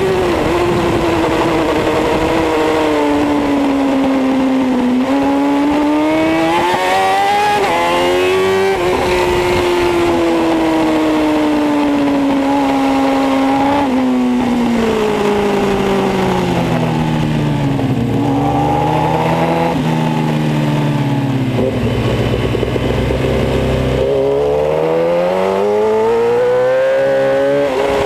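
Kawasaki ZX-10R's inline-four engine at racing speed, its revs climbing and dropping sharply again and again as the rider changes gear. About halfway through, the pitch falls in steps and stays low for a few seconds, then climbs again near the end.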